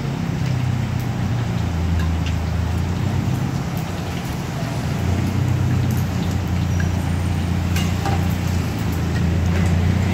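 Crab omelette frying in hot oil in a wok over a charcoal fire: a steady sizzle, with a few clicks of the metal ladle and spatula against the wok, over a low steady hum.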